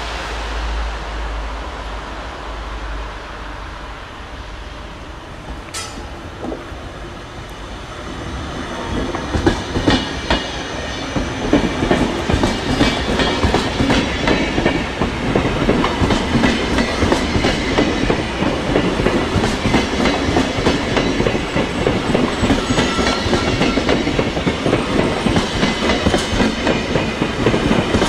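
SBB passenger train of single-deck coaches rolling past, getting louder from about eight seconds in as the coaches come alongside, then a steady clickety-clack of wheels over the rail joints.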